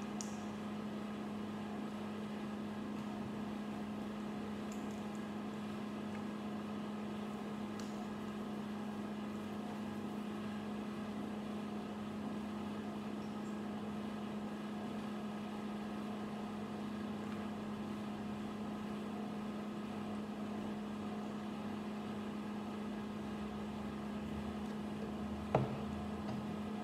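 A steady machine hum with a strong low tone throughout, with a few faint clicks of small plastic construction bricks being handled and fitted together. A single sharper knock near the end.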